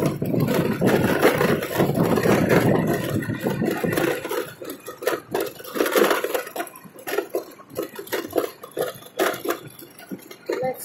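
Ride noise of a motorbike heard from the seat: engine and rushing air for the first few seconds, then a run of short knocks and rattles as it rolls over a paver-block road.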